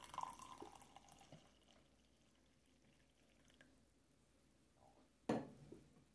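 Coffee pouring into a mug, the stream thinning to drips and stopping within about the first second and a half. Then near silence, broken by a single sharp knock about five seconds in.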